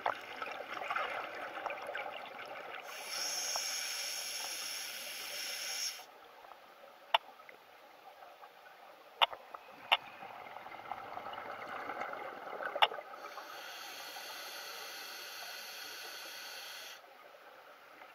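Scuba diver breathing underwater through a full-face-mask regulator, twice over: exhaled bubbles gurgle out, then a steady hiss of air is drawn in for about three seconds. There are a few sharp clicks between the breaths.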